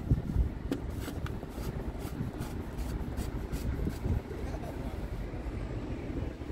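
A plastic engine oil filler cap being twisted off and handled, giving a few light clicks and rubs, over a steady low rumble.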